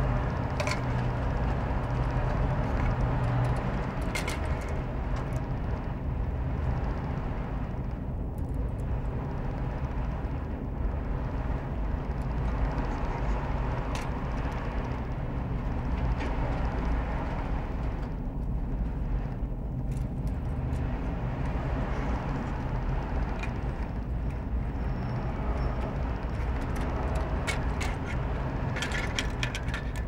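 Steady low background rumble, with a few faint clicks and taps as the horn pieces and a metal tape measure are handled.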